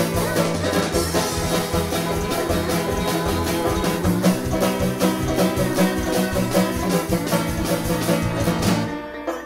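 Background music with plucked strings and a steady beat, which drops away suddenly near the end.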